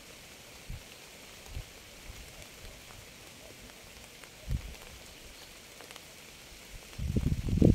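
Steady rain hiss with a few soft low thuds. Near the end a much louder, jagged low rumbling sets in.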